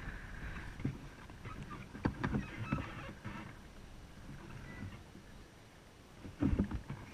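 Kayak being paddled: water splashing from the paddle strokes, with several sharp knocks in the middle and a louder thump near the end.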